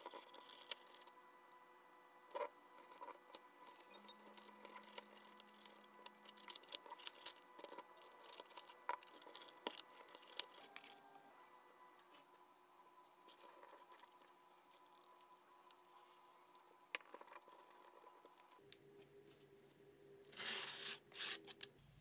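Craft knife cutting through a foam wing, a run of scratchy crackles and clicks, followed by quieter handling of small foam pieces with scattered ticks and a brief rustle near the end.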